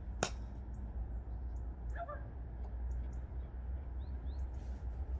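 Outdoor ambience over a low steady rumble, with one sharp click just after the start. A short bird call comes about two seconds in, and faint high bird chirps are scattered through.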